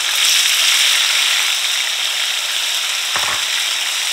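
Wet pepper-and-onion stir-fry vegetables sizzling steadily in smoking-hot oil in a nonstick frying pan on high heat, the wet hiss of their moisture steaming off. A brief knock about three seconds in.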